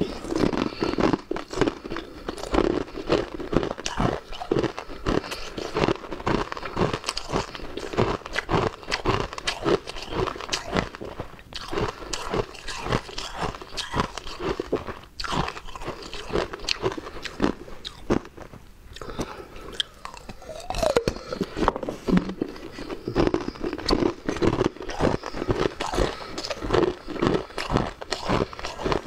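Close-up crunching and chewing of frozen ice rings: dense, rapid crackling crunches as the ice is bitten and ground between the teeth, with a couple of short pauses.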